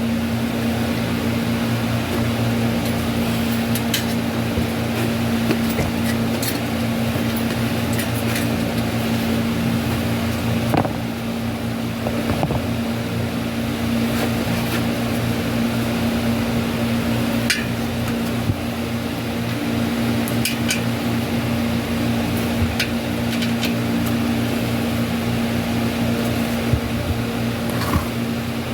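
A steady mechanical hum with an even low drone, with scattered light clicks and taps over it.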